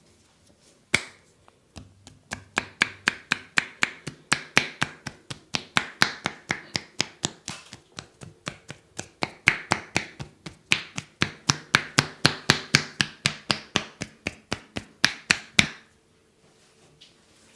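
Percussive massage: hands slapping or chopping on the body in a fast, even rhythm of about four to five strikes a second, after a single sharp strike about a second in, stopping suddenly near the end.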